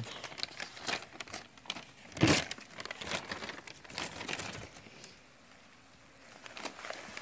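Crumpled newspaper packing rustling and crinkling as hands pull it about in a plastic tub, with one louder crackle about two seconds in and a quieter stretch near the end.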